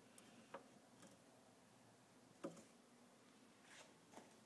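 Near silence: room tone with a few faint, scattered clicks, the sharpest about halfway through.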